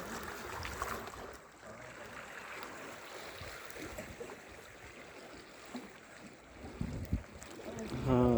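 Seaside ambience: wind rumbling on the microphone over the wash of the sea, with a few low bumps near the end.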